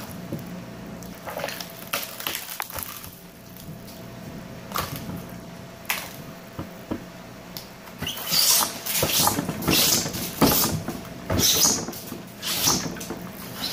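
Crumbly pink slime being squished and pulled apart by hand, making irregular crackles and clicks that grow louder and busier in the second half.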